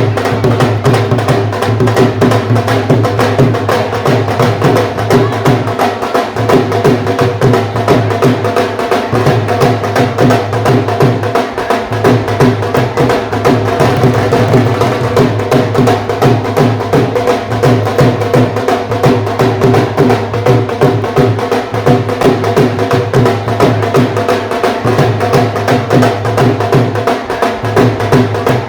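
Dhol drums played by several drummers in a fast, continuous rhythm. Deep strokes on the bass head run under rapid sharp strokes on the treble head, and the bass strokes pause briefly a few times.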